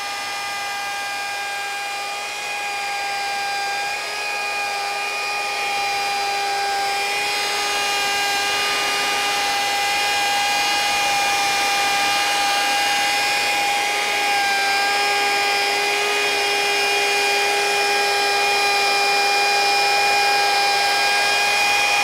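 Compact router running steadily with a constant whine, cutting a shallow 2 mm groove into plywood with a straight cutter guided along a track. It grows slightly louder as the cut goes on.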